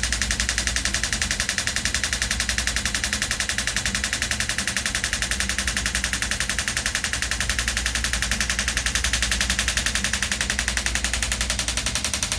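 Shockwave therapy handpiece firing pulses into the Achilles tendon through ultrasound gel: a rapid, even clicking, like a fast ticking that never lets up.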